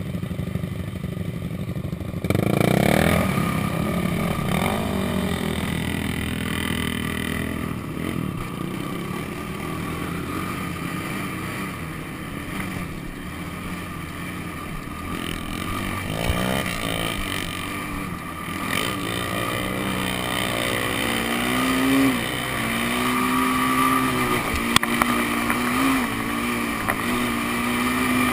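Sport quad (ATV) engine running under way, its pitch rising and falling as the throttle is worked. Other riders' engines may also be in the mix.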